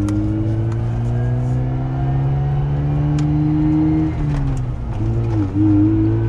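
Mazda RX-8's two-rotor rotary engine, heard from inside the cabin, pulling the car up through the gears while not yet warmed up. The engine note rises steadily, drops with a gear change about four seconds in, dips again, then climbs once more near the end.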